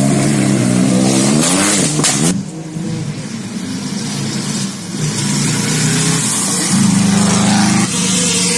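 Rally car engines at hard throttle passing on a gravel stage, the engine note climbing and dropping through gear changes. It breaks off sharply about two seconds in, goes quieter, then a loud, steady high-revving note runs for about a second near the end.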